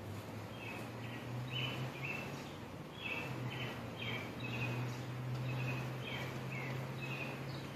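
A songbird singing a run of short chirpy notes, about two a second, some sliding downward, over a steady low hum.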